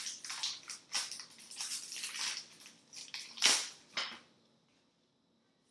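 Plastic trading-card pack wrapper crinkling and rustling as it is handled, in a run of quick crackles with the loudest about three and a half seconds in. It stops just after four seconds in.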